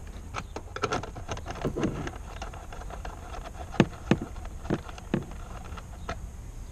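A 10 mm wrench working the tail light's mounting screw loose: irregular light metallic clicks and taps, with four sharper clicks after the middle.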